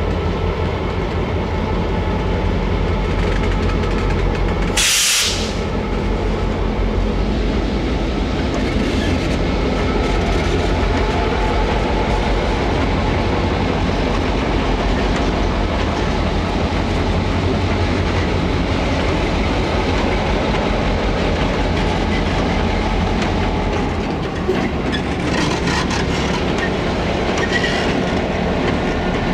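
EMD SD9 diesel-electric locomotives, 16-cylinder 567 engines, running as the consist moves slowly past, a steady low drone throughout. A brief sharp hiss about five seconds in.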